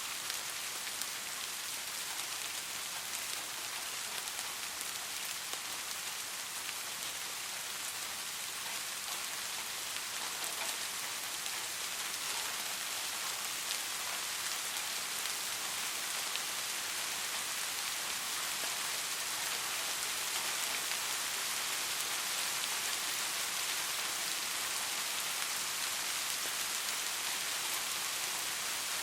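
Soft rain falling steadily, an even hiss with faint scattered drop ticks.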